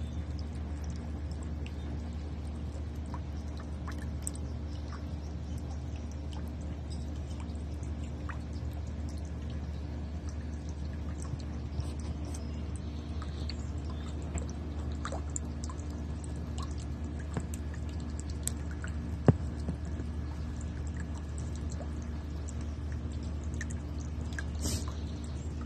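Water from a small birdbath fountain trickling and dripping into the basin over a steady low hum, with light splashes from a bathing magpie. One sharp click comes about nineteen seconds in.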